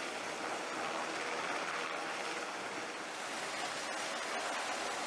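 Steady, even rushing noise of wind and sea, with no clear rhythm.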